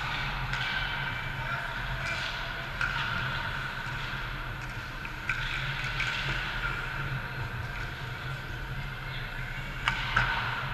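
Youth ice hockey play: skates scraping on the ice and sticks clicking over a steady low hum, with a couple of sharp knocks near the end.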